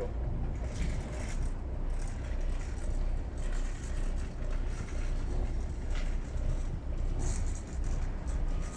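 Twin diesel engines of a Bayliner 4788 motor yacht idling in neutral with a steady low drone, and brief rushes of hiss now and then.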